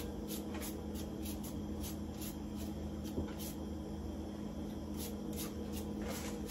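Hand vegetable peeler scraping down a carrot in quick repeated strokes, about two or three short rasps a second.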